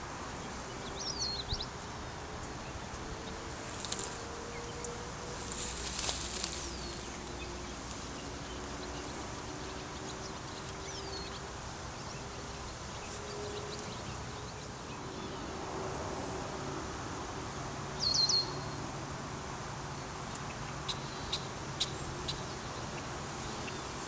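Honey bee swarm humming, with the buzz of single bees drifting up and down in pitch as they fly about the cluster. Short bird chirps break in a few times, the loudest about three-quarters of the way through.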